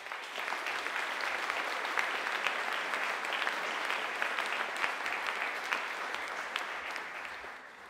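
An audience in a hall applauding, a dense steady clapping that fades away near the end.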